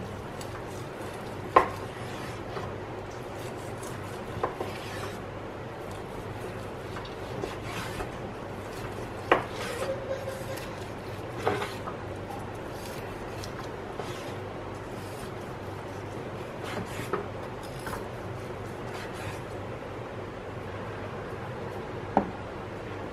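Kitchen knife slicing through roast beef on a wooden cutting board: rubbing, sawing strokes through the meat, with about half a dozen sharp knocks as the blade hits the board, over a steady low hum.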